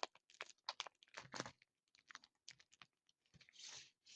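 Faint, scattered light clicks and a soft rustle near the end, like small objects being handled; otherwise near silence.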